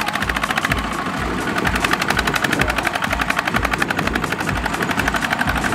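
Kubota ZT120 single-cylinder diesel engine on a two-wheel walking tractor running steadily under load with a rapid, even chugging beat, as it drives a loaded rice trailer out of the mud.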